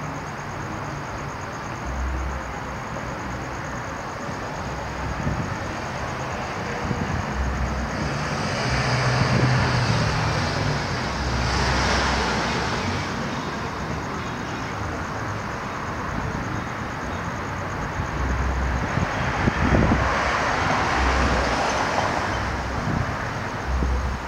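Road traffic: a steady wash of passing cars, swelling twice as vehicles go by, about a third of the way in and again near the end.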